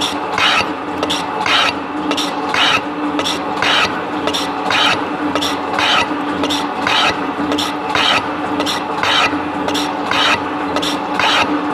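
7305T metal shaper planing metal: the ram runs back and forth over a steady motor hum, with a scraping cutting noise repeating evenly about twice a second.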